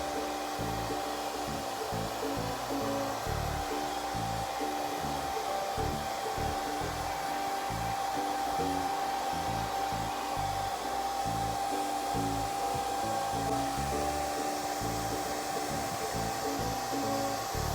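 Hair dryer running steadily with a constant whine, over background music.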